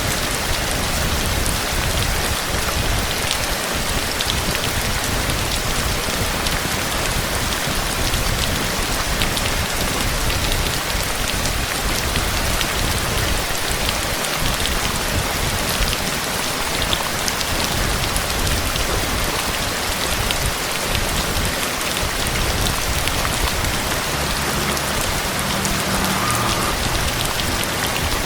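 Steady heavy rain with individual drops pattering on surfaces.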